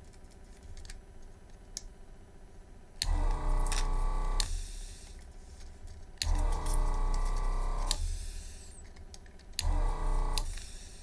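Yihua 948 desoldering station's built-in vacuum pump running in three short bursts, each starting suddenly and stopping after one to two seconds, as it sucks molten solder out of a circuit board's through-holes.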